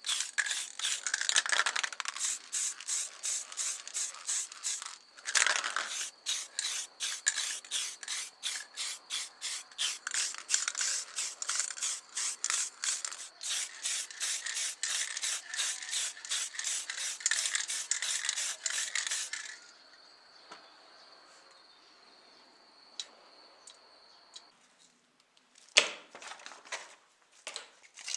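Hand sanding with sandpaper: quick, even back-and-forth strokes, about three a second, that stop about two-thirds of the way through. A few sharp small clicks follow near the end.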